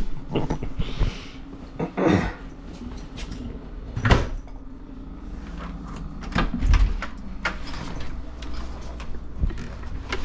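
Doors opening and closing: a series of knocks and clunks, the sharpest about four seconds in and a low thud near seven seconds.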